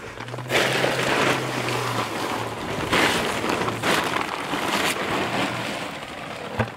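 Wind rushing over the microphone of a camera being carried while walking. A low steady hum runs under it for the first few seconds.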